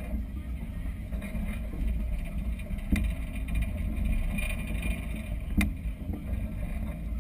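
Wind rumbling on a boat-mounted camera's microphone over choppy river water, with two sharp knocks, about three and five and a half seconds in.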